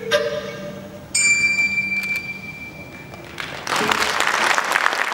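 Closing notes of the dance music: a sustained high note comes in suddenly about a second in and holds for about two seconds. Then audience applause breaks out near the end.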